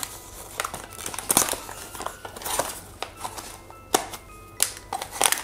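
Small cardboard blind box being torn open by hand at its top flap: tearing and crinkling of the card, with scattered sharp crackles.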